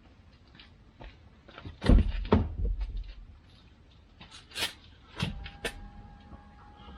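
Heavy knocks and thuds about two seconds in, then a few sharp clicks, as a minivan seat is handled. From about five seconds in, the power seat's electric motor starts a steady whine as the driver's seat moves.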